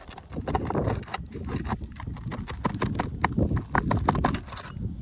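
Irregular sharp clicks and knocks of a roof snake being worked under a shingle to pull out a nail.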